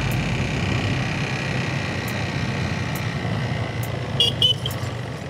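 Yamaha FZ-S single-cylinder motorcycle engine running steadily on a climb, with wind rushing over the rider's camera. About four seconds in, a vehicle horn toots twice briefly.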